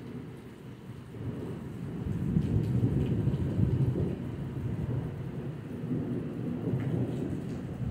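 Thunder rumbling, swelling about a second and a half in and rolling on, over steady rain.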